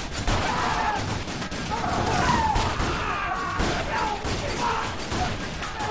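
Rapid, overlapping gunfire from several guns in a film shootout, shot after shot all through.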